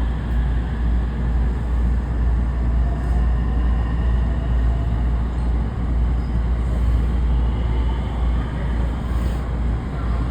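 Train running at the station: a steady low rumble with faint high whines above it.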